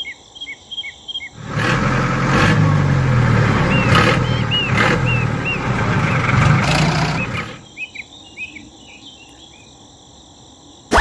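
Tractor engine running steadily for about six seconds, starting about one and a half seconds in and cutting out near the end, with birds chirping in short repeated calls before, over and after it.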